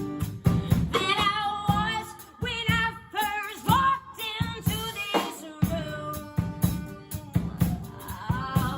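A woman singing a folk-rock singer-songwriter song with a band, her held notes wavering with vibrato over a steady drum-kit beat.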